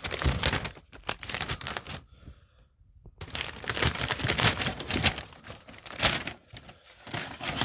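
Takeaway food bag and wrappings rustling and crinkling as the delivery is opened and unpacked by hand, in two bouts with a short pause near the middle and sharp crackles throughout.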